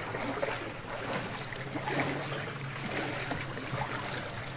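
Floodwater flowing fast across a road, a steady rushing wash, with a low steady hum underneath that strengthens about two seconds in.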